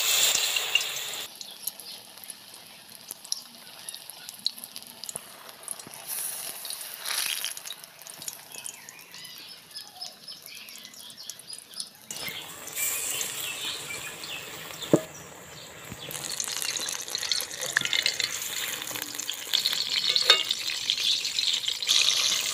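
Batter-coated ridge gourd pieces deep-frying in hot oil in an aluminium karahi. There is a loud sizzle as a piece goes into the oil at the start, easing to a softer crackle, then a second surge about halfway. The sizzle grows louder toward the end, with a single sharp tap in between.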